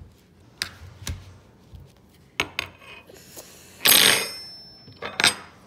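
Metal kitchen knife tapping and clattering on a plastic cutting board. Several sharp clicks, then a loud metallic clatter with a short ring about four seconds in, and another ringing click near the end.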